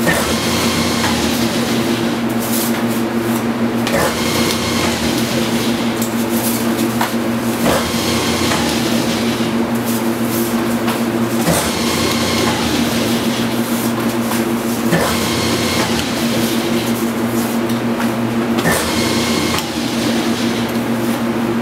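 Commercial meat grinder running ground beef, with a steady electric-motor hum and a rattling, hissing cycle that repeats about every three and a half to four seconds.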